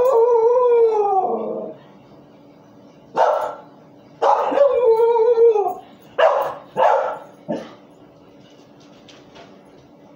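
A dog howling and barking: a long howl that falls in pitch, a single bark, a second falling howl, then three short barks in quick succession.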